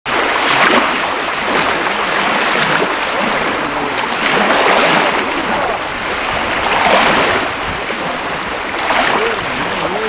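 Sea waves washing up on a beach, the surf swelling and falling back every two seconds or so.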